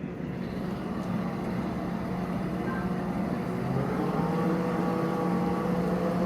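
Shuttle boat's engine running and growing louder, the tone of the engine rising a little partway through.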